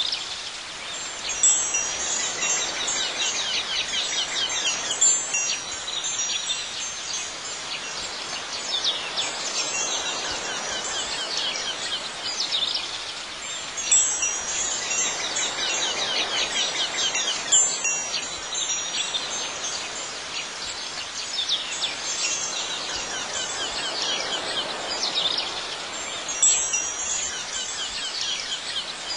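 High tinkling chimes ringing continuously, with louder flurries of strikes several times.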